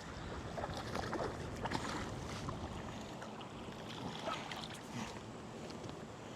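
River water running and lapping, with small splashes and light knocks scattered through it.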